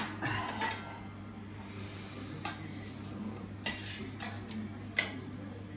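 Stainless steel plates and a serving spoon clinking now and then as food is dished out, a few light clinks with a sharper one about five seconds in, over a low steady hum.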